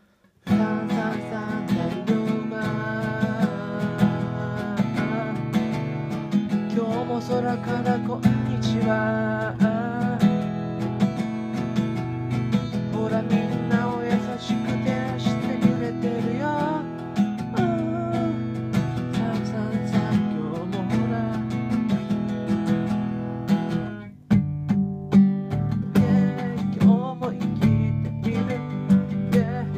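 Acoustic guitar strumming chords with a wavering melody line over it. The music drops out briefly about 24 seconds in, then picks up again.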